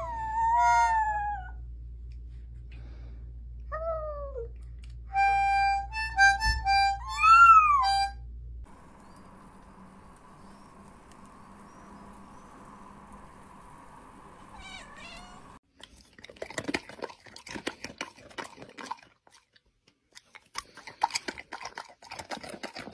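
A toy harmonica blown in short steady notes while a puppy howls along in rising and falling wails. Then comes a steady hum with a short cat call near the middle. Near the end there are rough, noisy vocal bursts from a dog.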